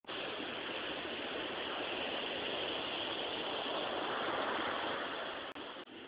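Surf washing onto a beach, heard as a steady rushing noise that swells a little midway and drops off sharply near the end.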